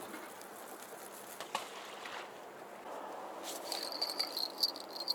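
Cricket chirping in a high, pulsing trill that starts about three and a half seconds in, over a steady low outdoor hiss. A single light click sounds about a second and a half in.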